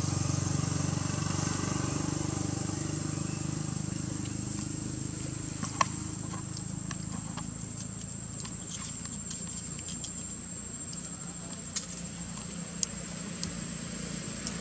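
Outdoor background: a low steady engine-like rumble that fades about three seconds in, a thin steady high whine, and scattered small clicks and crackles, with one sharp click about six seconds in.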